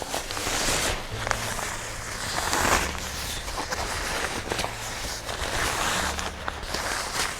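Rustling, scuffing and scattered sharp clicks from camping gear being handled during hammock and sleep-mat setup.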